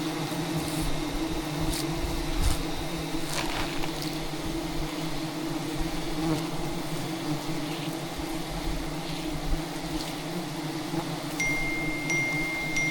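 A swarm of giant honey bees (Apis dorsata) buzzing close around the camera in a steady, dense hum, with a few sharp ticks of bees striking the camera in the first few seconds.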